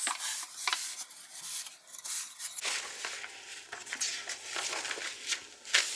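Wooden parts of an IKEA LÄTT flat-pack children's table being handled and fitted together: rubbing and scraping with a string of light knocks and clicks.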